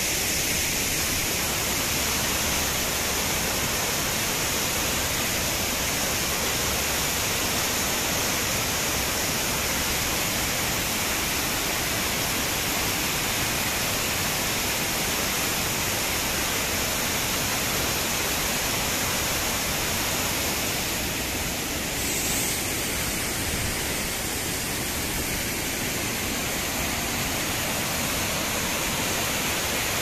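Waterfall: a tall cascade of water falling down a rock face, a steady, even rush of water.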